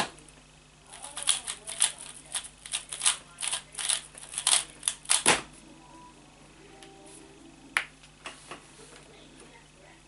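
3x3 plastic speed cube being turned by hand: a quick run of clicking layer turns, about four a second, for roughly four seconds. After a pause comes one sharper click near the eighth second, followed by a few faint ones.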